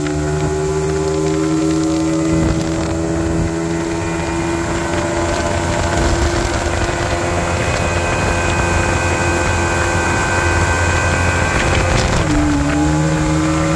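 Yamaha outboard motor running at a steady planing speed while towing a water skier. About twelve seconds in its pitch dips briefly, then climbs back up.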